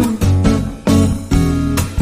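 Background music: acoustic guitar with plucked and strummed chords.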